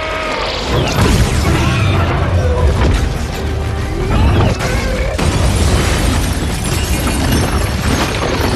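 Action-film battle soundtrack: a loud music score mixed with heavy booms, crashes and shattering debris over a constant deep rumble.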